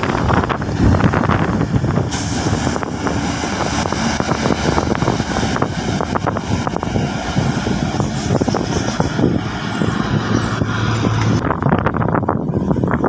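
Diesel bus and truck passing on a concrete road and driving away: engine and tyre noise. The sound changes abruptly near the end.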